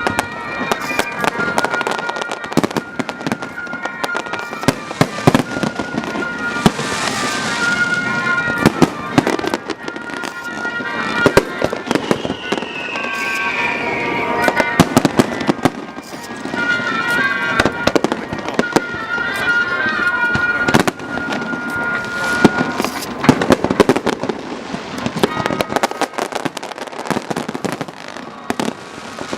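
Fireworks display: a dense, continuous run of bangs and crackles from bursting shells. About twelve seconds in, one whistle falls in pitch.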